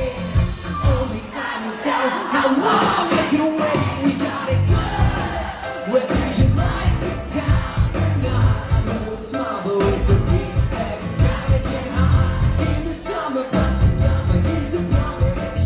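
Live pop-rock band playing with a lead singer, drums and guitar, recorded on a phone from within the crowd in a concert hall. The beat drops out for a few seconds about a second in, then the full band comes back in.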